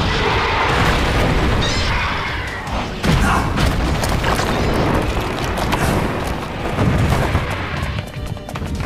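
Giant-monster fight sound effects: heavy booms and crashes of the hero and kaiju grappling, with a sharp impact about three seconds in, over dramatic background music.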